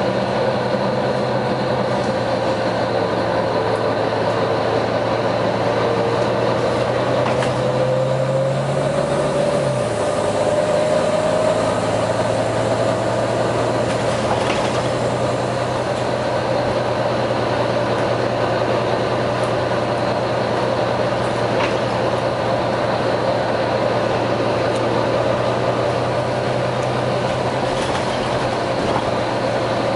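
Volvo B9TL bus's six-cylinder diesel engine running steadily, its low engine note dropping sharply about ten seconds in. A whine rises slowly in pitch over the first half.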